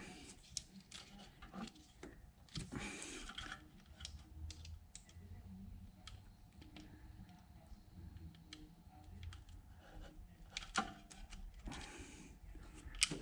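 Faint small clicks and rustling of hands working wiring-loom contacts and a connector plug, with two longer rustling scrapes about three seconds and twelve seconds in.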